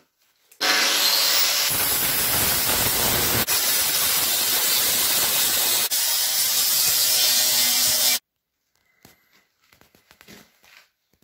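Angle grinder spinning up with a short rising whine, then running loud and steady against the steel frame of a tractor cab door. After about seven and a half seconds it cuts off suddenly.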